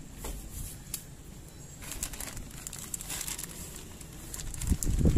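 Plastic bag crinkling and rustling as it is pulled off a new part by hand, with a louder dull knock near the end.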